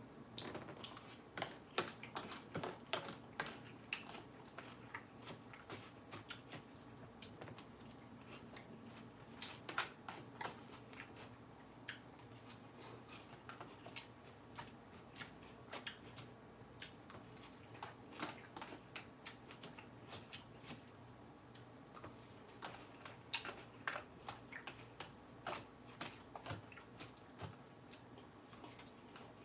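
A person chewing crunchy lettuce with the mouth close to the microphone: many faint, irregular crunches and crackles that come in spells of bites.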